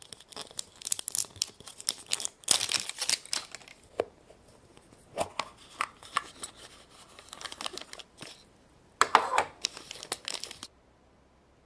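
Foil wrapper of a surprise egg crinkling and tearing as it is peeled off by hand, in irregular bursts, stopping abruptly near the end.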